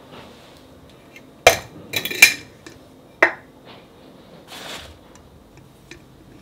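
The wire bail clasp of a Bormioli Fido glass jar being unlatched and its glass lid swung open: a sharp click, a quick cluster of metal-on-glass clinks about half a second later, another click about a second after that, then a brief soft rustle.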